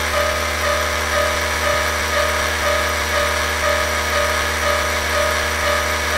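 Cartoon level-crossing warning sound: a tone beeping about twice a second over a steady low hum and hiss.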